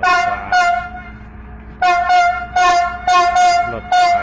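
Passenger train's horn sounding loud short blasts: two quick toots, then after a pause of about a second a rapid run of five or six more.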